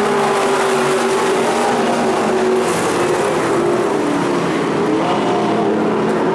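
Several dirt-track stock car engines running together as the cars circle the oval: a steady, loud blend of overlapping engine notes.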